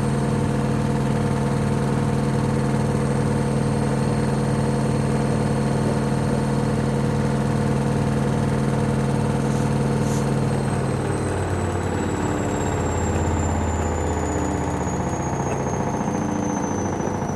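Hoover Vision HD washing machine on a very unbalanced spin: a steady motor whine with a regular low beat about twice a second. About ten seconds in the motor pitch starts falling as the drum slows.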